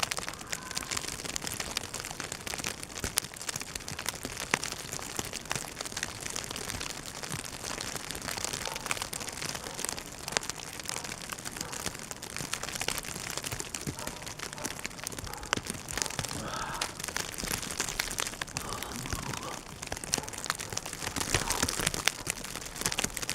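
Steady crackling patter of blizzard snow hitting the microphone, dense fine ticks over a noisy hiss.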